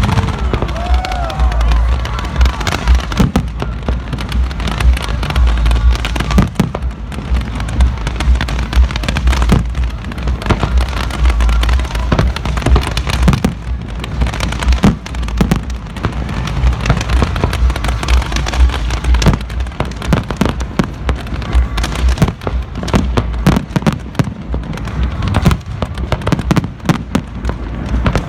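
Fireworks going off continuously: a dense barrage of sharp bangs and crackles over deep booms, with a brief whistling glide about a second in.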